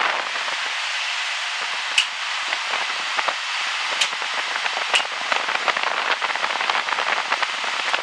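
Homemade electric furnace blower heater running with a steady rush of air and a fine crackle throughout, and sharp clicks about two, four and five seconds in as its toggle switches are flipped.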